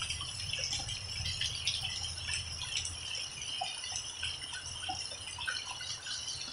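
Heavy rain falling steadily, with water streaming off the roof eaves and many scattered drops plinking.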